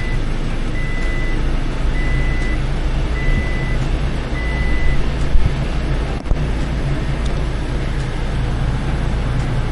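Toyota Tacoma's engine idling just after starting, with the dashboard warning chime beeping five times at about one beep a second before it stops.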